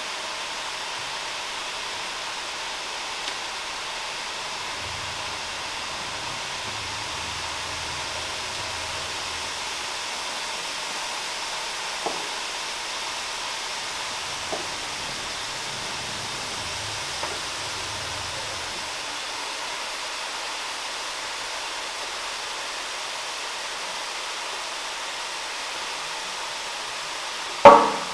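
Steady rushing noise of machinery and air in a rug-washing workshop, with a few light clicks and a loud knock near the end as the rug is pressed flat onto the washing machine's bed.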